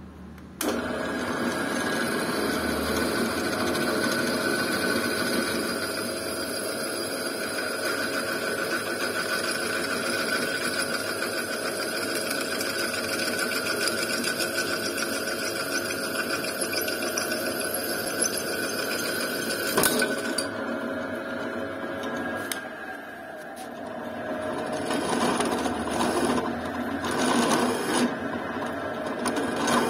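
Drill press running, its twist drill cutting into a welded aluminium boss on a crankcase, a steady motor hum with cutting noise. A sharp click comes about two-thirds through, the sound dips, then swells unevenly as a flat cutter faces the hole.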